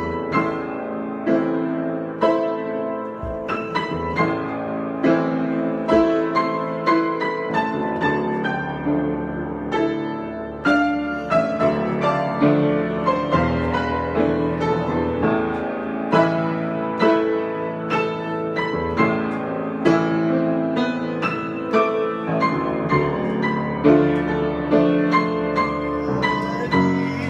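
Solo piano improvisation: chords and melody notes struck one after another, each ringing on under the next.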